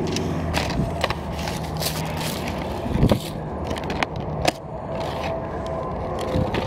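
Plastic blister-packed action figures being handled and set down on a car roof: scattered sharp clicks, taps and scrapes of plastic on painted metal, over a steady low hum.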